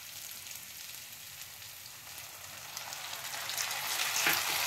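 Sliced onions frying in hot mustard oil in a kadai, a steady crackling sizzle. The sizzle grows louder over the last couple of seconds as tomato purée goes into the pan.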